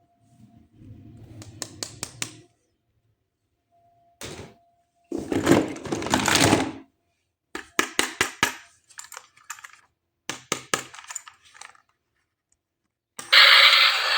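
Hard plastic toy parts and packaging being handled: bursts of sharp clicks and rustling, separated by short quiet gaps. Near the end, a loud, steady electronic toy sound effect starts.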